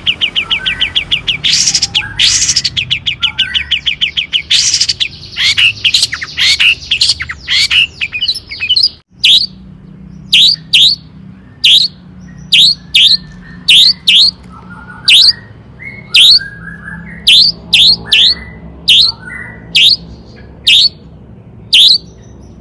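Long-tailed shrike (cendet) singing: a fast, dense chattering trill, then after a brief break about nine seconds in, a steady series of sharp single "toet" notes repeated more than once a second.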